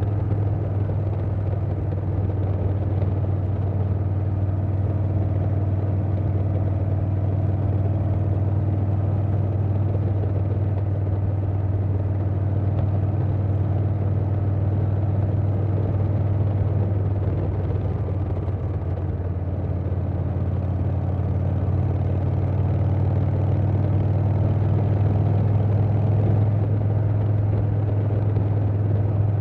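Harley-Davidson Softail Standard's Milwaukee-Eight V-twin running at a steady cruise through a Vance & Hines Big Radius 2-2 exhaust, with wind noise. It eases off briefly about two-thirds through, then builds again near the end.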